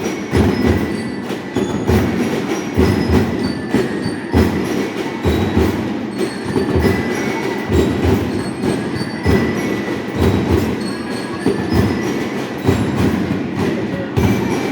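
Marching band (banda músico-marcial) playing: a dense, steady drum beat with short, high bell-lyre notes ringing above it.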